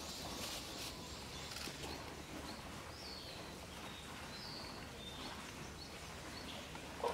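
Steady outdoor background noise with a few faint, short, high bird chirps about three seconds in and again around four and a half and five seconds in; a brief sharp sound right at the very end.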